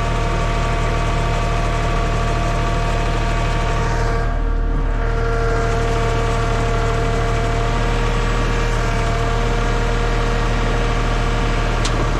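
TYM compact tractor's diesel engine running steadily as the tractor creeps up the loading ramps, with a steady hum and a few held tones. A single faint click sounds near the end.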